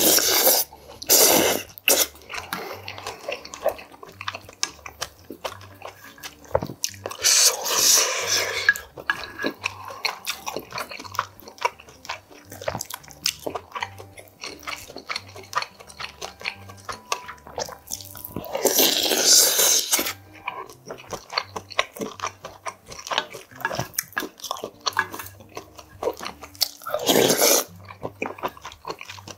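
Close-up eating sounds of yukgaejang soup: several long slurps of broth from a spoon, the biggest around 7 and 19 seconds in and again near the end, with steady wet chewing in between.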